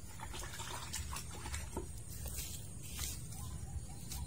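Light rustling and scattered small clicks from hands handling cut orchid material, over a steady low background rumble and a thin, steady high whine.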